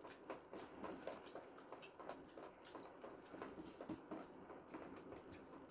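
Faint eating sounds: chewing and mouth clicks while fried chicken is eaten by hand, as a scatter of small ticks several times a second.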